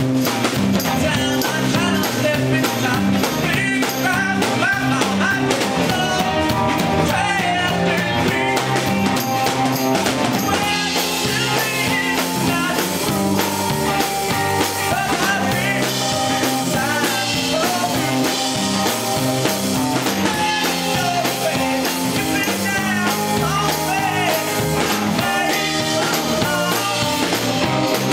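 Rock band playing live and loud: electric guitar, bass and a drum kit driving along, with a man singing the melody into a microphone.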